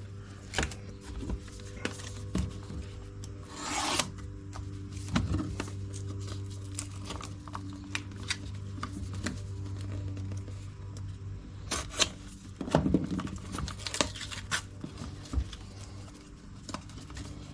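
Hands handling tools and packaging on a bench: irregular clicks, rubbing and scraping, with a short rasping burst about four seconds in and a spell of clatter near the end, over a steady low hum.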